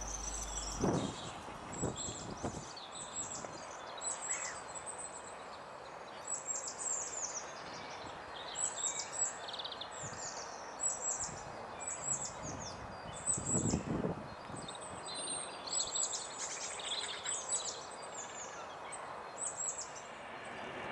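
Small birds singing outdoors: many short, high notes that sweep downward, repeated in quick phrases over a faint outdoor hiss, with a brief lower sound about two-thirds of the way through.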